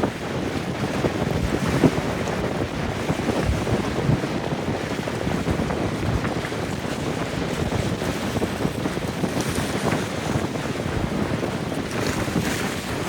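Strong wind buffeting the microphone: a continuous rush with irregular low thumps from the gusts.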